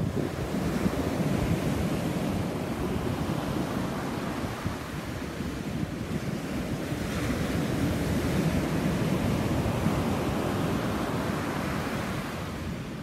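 Ocean surf breaking on a sandy beach, a steady wash of waves, with wind buffeting the microphone. The surf grows louder and hissier about seven seconds in.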